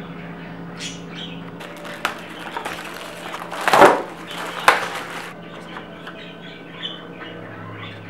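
Plastic wrap around a stack of egg flats crinkling and tearing as it is pulled open, with the loudest tear a little under four seconds in and another sharp one near five seconds.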